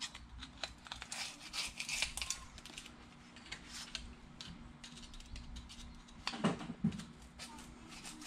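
A steel knife blade scraping packed crud out of the groove of a Windsor sprocket-nose chainsaw guide bar, in a run of short scratchy strokes and clicks, with two knocks about six and a half seconds in.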